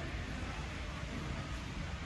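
Steady background noise of a large warehouse store: a low rumble and an even hiss, with no distinct events.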